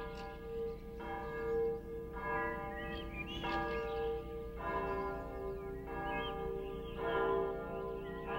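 Church bells ringing, a new stroke about every second over a steady humming tone.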